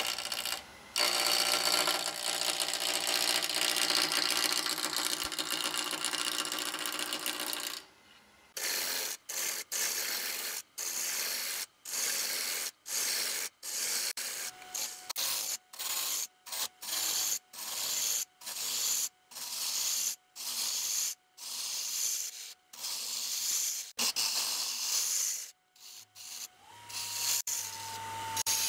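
Gouge cutting a spinning walnut blank on a wood lathe. It runs as one continuous cut for about eight seconds, then as a string of short cuts about one a second, each broken by a brief gap as the tool comes off the wood.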